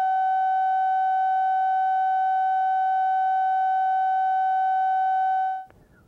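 Steady line-up tone that runs under a television countdown slate: a single unwavering pitch that cuts off abruptly near the end, leaving faint tape hiss.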